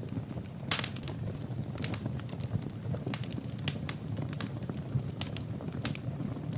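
Fire burning in a fireplace: a steady low rumble of flames with frequent sharp crackles and pops at irregular intervals.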